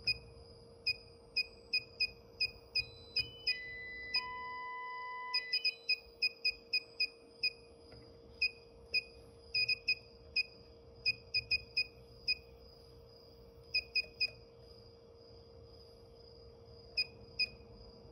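Short, high electronic beeps from a FeelElec FY6900 function generator, coming in quick irregular runs as its frequency digits are stepped. For about two seconds near the start, a sustained set of steady electronic tones steps down in pitch, and a steady electronic hum runs underneath throughout.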